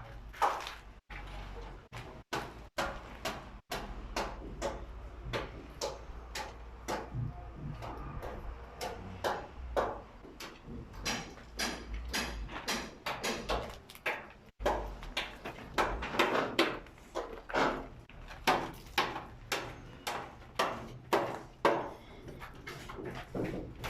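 Hammers knocking nails into timber formwork: a steady run of sharp, irregular strikes, about one to two a second.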